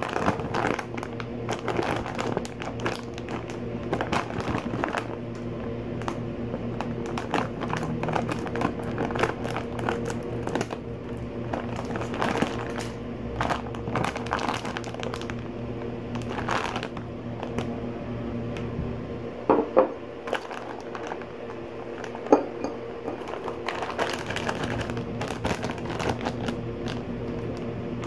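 Plastic snack bag crinkling as it is handled and torn open, in many irregular rustles, with a couple of sharper clicks about two-thirds of the way through as the chocolate pretzels are tipped out.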